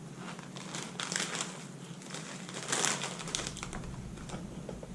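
Crinkling of a plastic potato chip bag being handled and opened, in irregular rustling bursts, busiest about a second in and again near three seconds.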